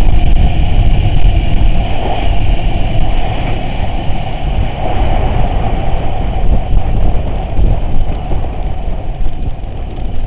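Off-road vehicle driving, a loud steady engine and drivetrain rumble with a dense low end, easing slightly in level over the last couple of seconds.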